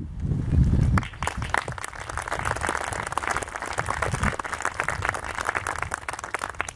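Small audience applauding: a steady patter of hand claps that starts about a second in and runs on, following a low rumble at the start.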